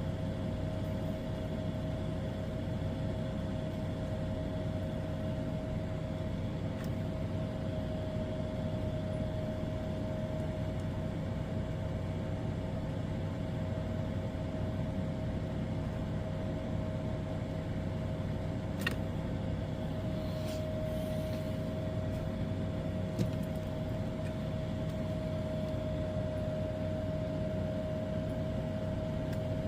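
Steady electrical hum with a faint high whine over it, broken by two small clicks in the latter part.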